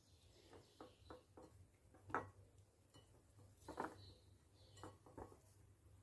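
Faint handling sounds of hands rubbing a chopped herb and onion mixture onto courgettes in a bowl: a scatter of light clicks and taps, the loudest about two seconds in and again nearly four seconds in.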